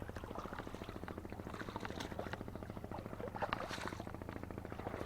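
A small engine running steadily with a fast, even pulse, with faint water splashes and light ticks over it.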